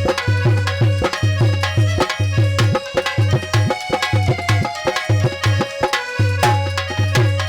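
Instrumental interlude of a Hindi devotional aarti song: a fast, steady hand-drum rhythm with deep bass strokes, and a melody instrument over a held tone.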